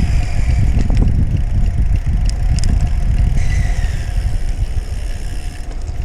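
Strong headwind buffeting the microphone of a moving bicycle, a loud, steady low rumble.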